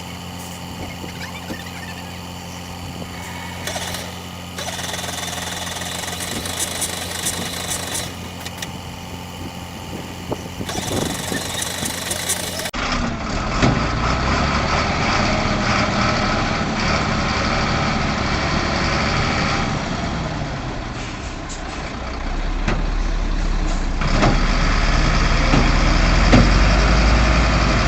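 Heavy vehicle engines running in two clips: a steady engine note, then, after an abrupt cut about 13 seconds in, a louder, deeper rumble that swells again in the last few seconds, with a few short knocks.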